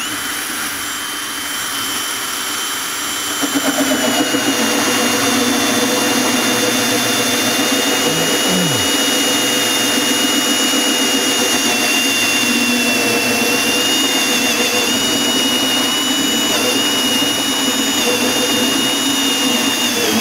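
HART cordless drill on its low-speed setting driving a 2-1/8-inch hole saw through 1/2-inch OSB. A steady motor whine, dipping slightly in pitch and joined by a louder grinding cut about three and a half seconds in as the saw teeth bite into the board.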